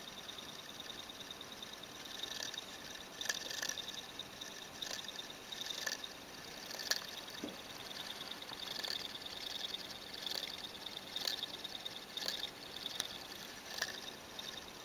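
Homemade coil-and-magnet electric motor running: a faint, fast, high-pitched rattling buzz from the coil spinning in its wire supports, with irregular louder clicks.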